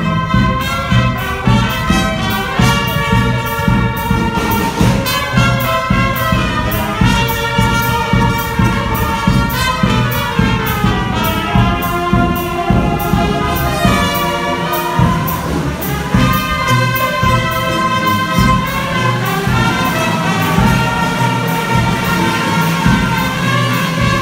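Brass band music: brass instruments playing a melody over a steady beat.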